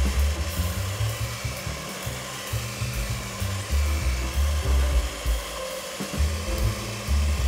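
Electric hand mixer running, its beaters scraping and rubbing against a stainless steel bowl as they beat cake batter, under background music whose low bass notes are the loudest thing heard.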